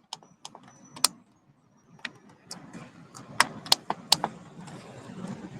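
Irregular sharp clicks and knocks with faint rustling in between: handling noise.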